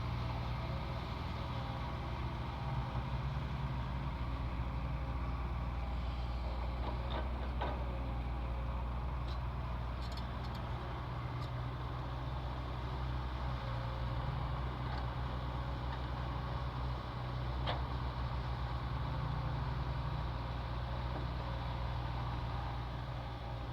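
Heavy diesel engine of earthmoving machinery running steadily, with a few faint sharp clicks partway through.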